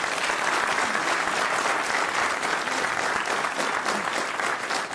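Studio audience applauding steadily, many people clapping at once.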